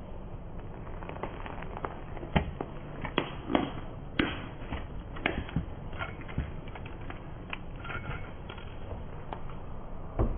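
A car tyre rolling slowly over a row of plastic disposable lighters, their casings cracking and snapping one after another in an irregular run of sharp cracks and clicks. The loudest cracks come between about two and six seconds in, over a low steady rumble.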